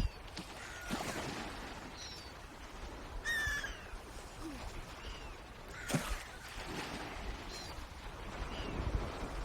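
Scattered short bird calls over outdoor background noise: several brief, high, falling chirps and one stronger call with a stack of tones about three seconds in. Two soft low thumps come about a second in and near six seconds.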